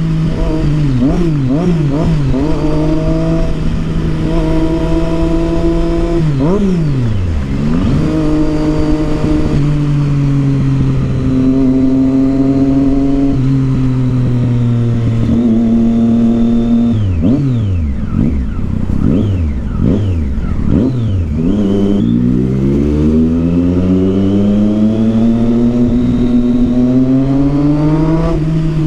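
Triumph Street Triple 675's inline-three engine through a loud Yoshimura aftermarket exhaust while riding: steady cruising stretches broken by several quick drops and rises in revs, then a long climb in revs through a gear near the end.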